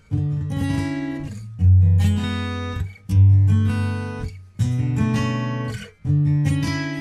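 Background music: acoustic guitar strumming chords, a new chord struck about every second and a half and left to fade.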